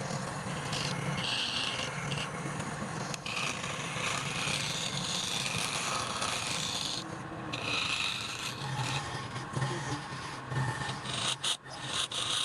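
Abrasive rubbing on wood, going in stretches of one to two seconds, with a short break past the middle and another near the end.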